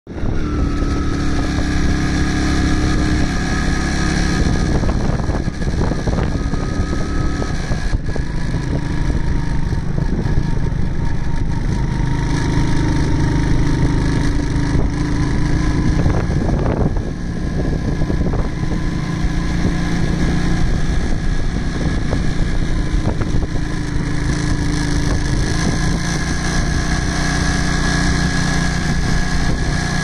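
A vehicle engine running steadily while on the move, with wind noise on the microphone; its pitch steps up or down every few seconds.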